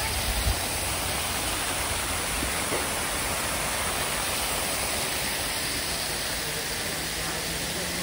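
Fountain water jets spraying and splashing into a pond beside artificial cascades: a steady rushing hiss of falling water, with a brief low thump about half a second in.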